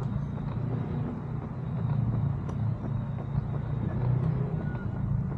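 Outdoor park ambience with a steady low rumble of road traffic, a few faint clicks and a short high chirp near the end.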